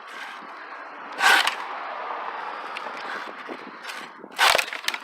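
Razor-tooth pruning saw rasping through a dead branch for about three seconds, with a loud knock about a second in and another near the end.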